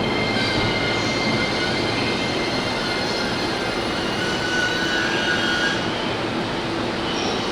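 Electric commuter train moving through the station platform: a steady rolling rumble with thin, high, squeal-like tones above it.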